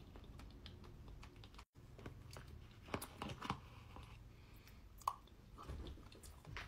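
Quiet close-up eating sounds: soft chewing of trifle, with scattered small clicks. The sound briefly cuts out about a second and a half in.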